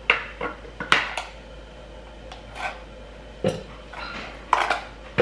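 Kitchen clatter while smoothie ingredients are put together: a string of short, sharp clinks and knocks at irregular intervals, about eight in all, as a bag of ingredients and utensils are handled over a stainless-steel bowl.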